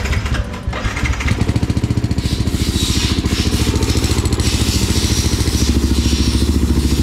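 Yamaha WR155R single-cylinder engine idling through an aftermarket valved slip-on silencer, an even pulse that settles in about a second in. The exhaust valve is in its closed, silent position.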